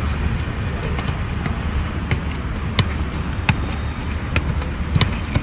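A football being juggled with the feet: several sharp knocks of foot on ball, a little under a second apart, starting about two seconds in, over a steady low outdoor rumble.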